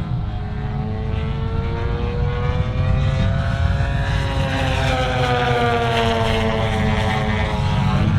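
Apex Aerotech 102-inch Slick 360 model aerobatic plane in flight, its engine and propeller giving a steady drone that rises in pitch over the first half and then falls away.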